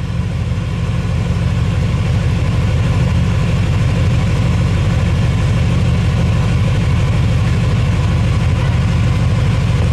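Car engine running at a steady idle, growing a little louder over the first couple of seconds and then holding even.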